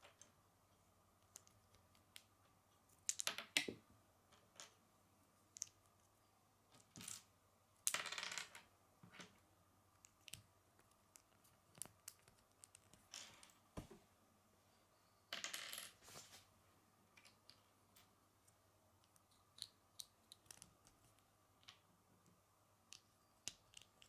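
Small plastic Lego bricks being handled and pressed together: scattered light clicks and snaps, with a few short, louder rattling bursts as the bricks are fitted.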